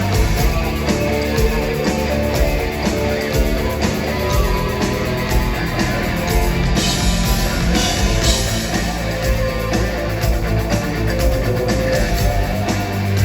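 Rock music with electric guitars and a drum kit playing steadily, an instrumental passage.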